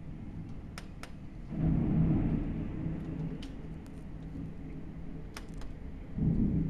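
Thunderstorm heard from inside a building through window glass: a low rumble of thunder swells up about a second and a half in and another near the end, over a steady low drone, with a few sharp ticks scattered through.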